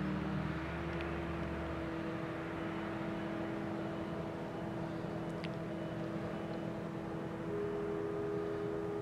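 Tractor engine running steadily as it hauls a silage trailer, a steady droning hum with a second higher tone joining near the end.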